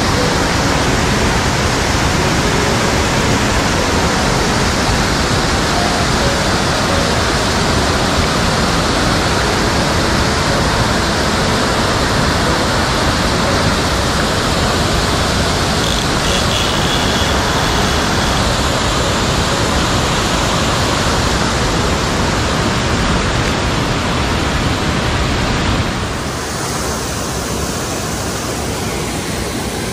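Mountain stream water rushing steadily, a loud, even rush. About 26 seconds in it becomes a little quieter and duller.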